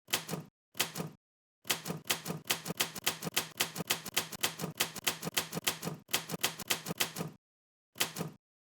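Manual typewriter being typed on: type bars striking the paper on the platen in quick sharp clacks, several a second. The runs of keystrokes break off abruptly into dead silence a few times.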